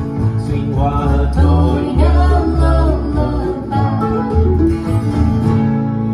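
Acoustic string band (acoustic guitars, mandolin and upright bass) playing a country-bluegrass song with singing, settling onto a held chord near the end.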